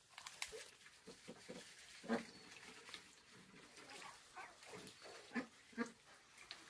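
Short, scattered calls from farm animals, loudest about two seconds in and twice more near the end.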